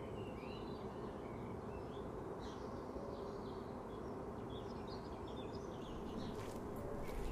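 Outdoor park ambience: small birds chirping now and then over a steady low background noise, with a few faint ticks near the end.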